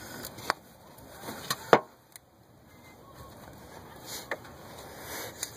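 A few sharp clicks and knocks of hand work on an engine, with one louder snap just under two seconds in, as a spark plug wire stuck on its plug is pulled off.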